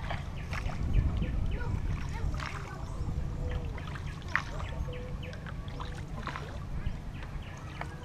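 Water splashing and dripping around a small wooden boat as it is paddled across open water, many short irregular splashes over a steady low rumble of wind on the microphone.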